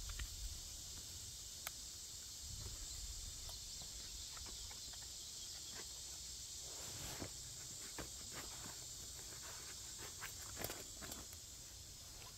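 Nylon stuff sack and canvas haversack being handled and packed: light rustling and scattered small clicks, busiest in the second half. Underneath runs a steady high-pitched insect chorus.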